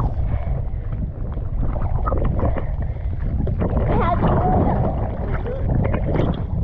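Lake water sloshing and splashing against a camera held at the surface by a swimmer, with a heavy low rumble of water buffeting the microphone and irregular small splashes throughout.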